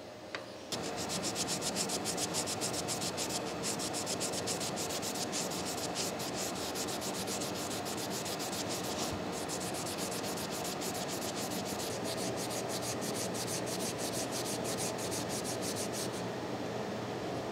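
A small steel machine part being rubbed by hand against cloth in rapid, even back-and-forth strokes, cleaning it up before reassembly. The rubbing starts about a second in and keeps a steady pace.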